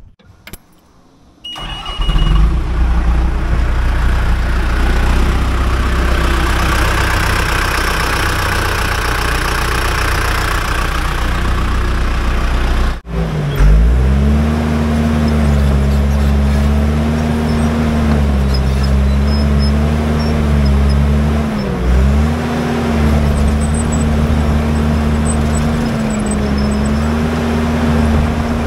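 A loud, steady rush of noise for roughly the first half. Then, after a sudden break, the diesel engine of a John Deere 650H LGP crawler dozer runs steadily as the machine is driven, its pitch sagging briefly twice under load.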